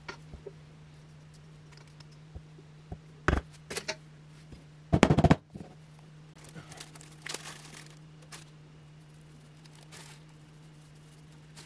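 Metal bakeware clattering on a countertop: two sharp knocks, then a louder rapid run of knocks about five seconds in. A packet crinkles and tears open after that, over a steady low hum.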